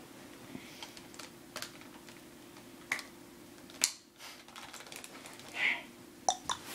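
Scattered clicks and knocks of an airsoft M4 rifle and its attachments being handled and fitted, about a dozen in all, the loudest a sharp click about four seconds in.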